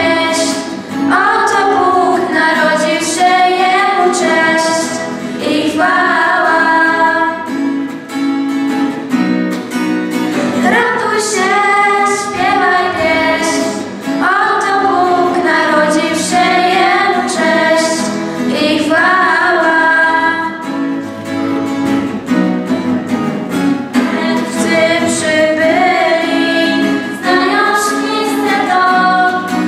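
Youth choir with high female voices singing a Christmas carol (kolęda), accompanied by instruments, in phrases of a few seconds each.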